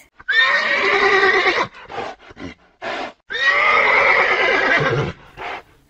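Horses neighing: two long whinnies, with a few short sounds in between and a short one near the end.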